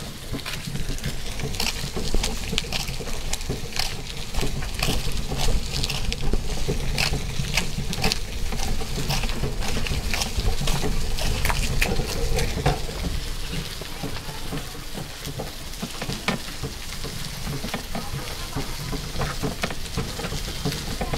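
Rickshaw rattling as it rolls over a rough dirt lane: a dense run of small clicks and knocks over a steady low rumble.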